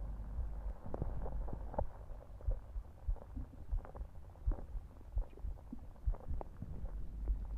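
Belly sounds recorded close against the abdomen after drinking soda: irregular small pops and gurgles of gas and liquid in the gut, over a low, steady thudding of the heartbeat.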